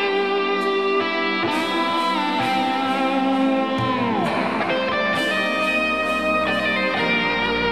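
Instrumental guitar music: held guitar notes with pitch bends over sustained chords, one note sliding down about halfway through, with a low bass coming in near the end.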